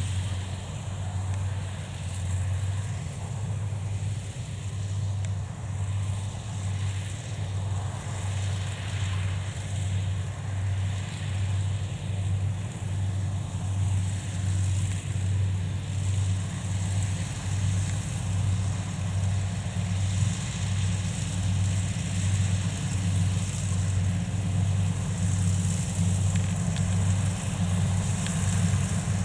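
Kubota DC70 Plus combine harvester's diesel engine and threshing gear running under load while it cuts rice, a low drone that pulses evenly. It grows a little louder toward the end.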